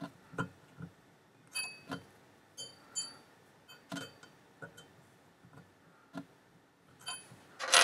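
Allen key clicking and clinking against a chrome mixer-tap lever as it is turned to tighten the lever's grub screw: irregular small metallic ticks about every half second, some ringing briefly, with a louder clack near the end.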